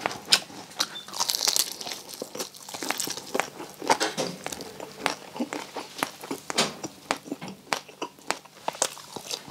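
Crackling skin of crispy deep-fried pork belly (bagnet) crunching as it is bitten and chewed, a rapid, irregular run of sharp crunches.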